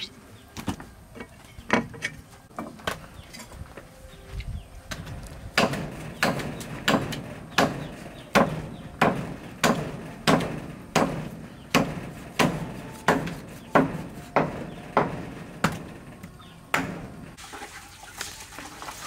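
A hatchet and a cleaver chopping through raw cow legs on wooden chopping blocks: a few scattered knocks at first, then steady blows about twice a second from about five seconds in until near the end.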